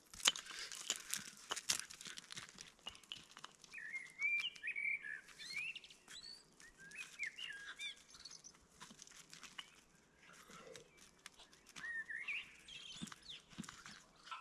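Small birds chirping in short, twisting calls, several times over, against sharp crunches on gravel that are thickest in the first couple of seconds.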